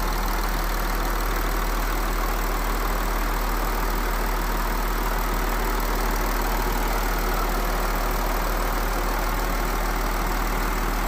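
Audi 3.0 TDI V6 diesel engine idling steadily, after its faulty timing chain tensioner and exhaust camshaft have been replaced to cure timing chain rattle.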